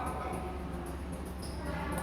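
Background music at moderate level over a steady low hum, with faint short high clicks scattered through it.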